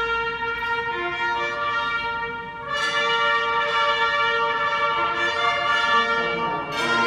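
Instrumental music in held, sustained chords, the chord changing about three seconds in and again near the end.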